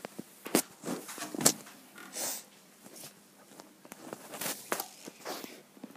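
Whippet puppy asleep on a fleece bed, giving a scatter of short, irregular snuffles and rustles, with a couple of sharp clicks in the first two seconds.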